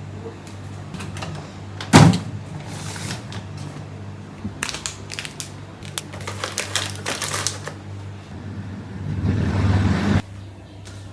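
Household handling sounds: a sharp knock about two seconds in, then a run of light clicks and rustles, and a swelling rush that cuts off suddenly near the end, over a steady low hum.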